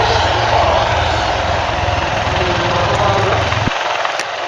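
Helicopter in flight: the fast, even beat of the rotor blades over steady engine noise. The low rumble cuts off abruptly near the end.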